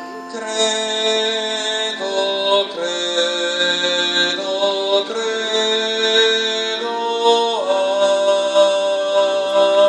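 A procession hymn with long held chords that change about once a second, and one slide down in pitch near the end.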